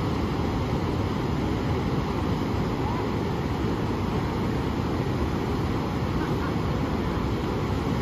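Steady roar of Pacific Ocean surf, waves breaking and washing up onto the beach, recorded live on a phone.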